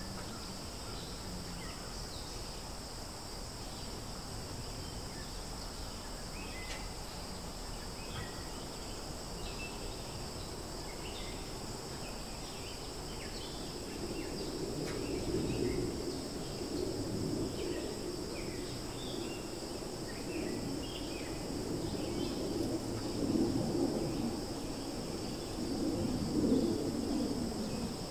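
Outdoor ambience: a steady, high-pitched drone of insects, with scattered short bird chirps. About halfway through, a louder low noise comes in that rises and falls.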